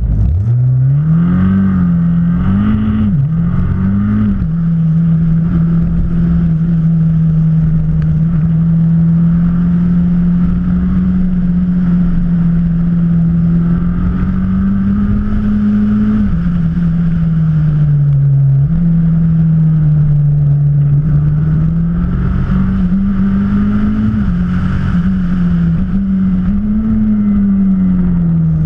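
Radical SR3 SL's turbocharged four-cylinder engine heard from on board the car. In the first four seconds the revs climb and drop sharply three times as it pulls away through quick upshifts. It then runs at a fairly steady pitch, rising and falling a few times further on and dropping near the end.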